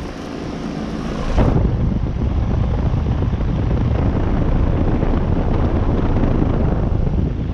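Outdoor unit of a 2014 Thermal Zone 2.5-ton heat pump with a Copeland scroll compressor, running steadily in heat mode: the fan and compressor make a continuous whooshing hum. It gets louder and deeper about a second and a half in.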